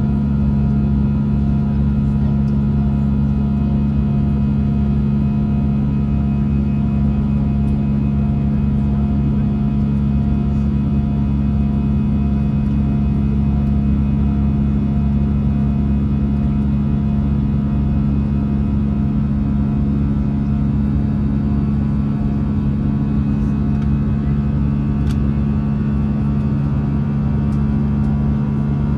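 Steady cabin drone of a jet airliner in cruise: turbofan engine and airflow noise heard from a window seat, a constant low rumble with a deep unchanging hum.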